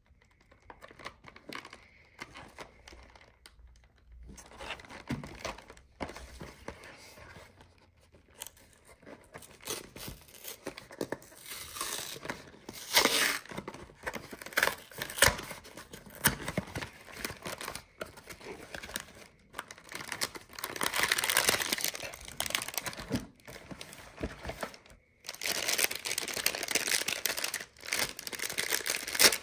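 A fruit bar's wrapper being torn open and crinkled by hand, in irregular bursts of rustling with several louder stretches and short pauses.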